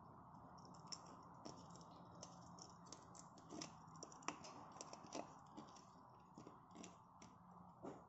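Green-winged macaw cracking and chewing seeds with its beak: faint, irregular sharp cracks and clicks, several close together at times, over a low steady hum.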